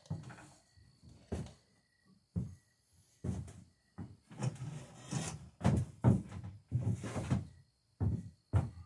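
Footsteps and knocks on a wooden shop floor: an uneven run of short, dull thuds, loudest in the second half.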